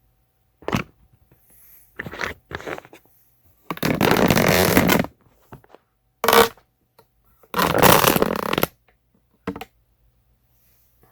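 Handling noise: a series of noisy rustling and rubbing bursts, several short ones and two longer ones of about a second each.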